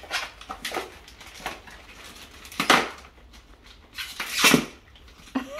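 Plastic bag wrapped around a rolled-up mattress crinkling and rustling in short bursts as it is pulled and handled. The loudest bursts come about two and a half seconds in and again around four to four and a half seconds in.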